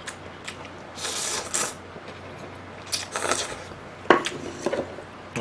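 A person slurping ramen noodles and chewing. There are two wet slurps, about a second in and about three seconds in, with smaller mouth sounds and a sharp click a little after four seconds.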